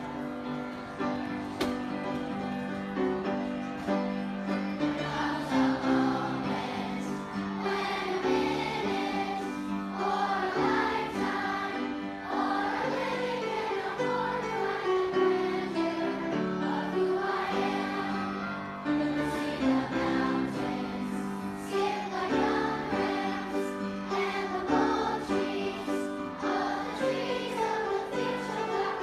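A choir singing a slow school song with instrumental accompaniment, played as a recording through shared screen audio.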